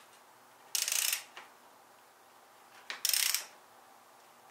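A socket ratchet clicking in two short bursts about two seconds apart as its handle is swung back while unscrewing a bicycle suspension fork's top cap.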